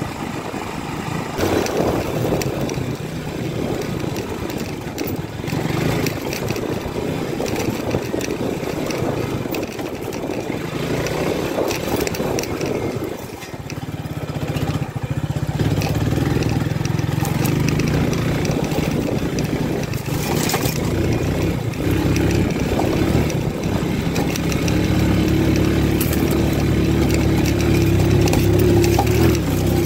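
Mondial 150 KT motorcycle's single-cylinder engine running under load as the bike climbs a grassy hillside, with the engine note rising over the last few seconds.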